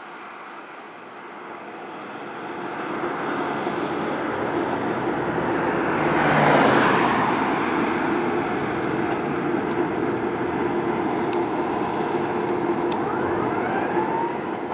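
Street traffic, with a vehicle passing close about halfway through, and a receding fire apparatus siren wailing, its rising sweeps clearer near the end.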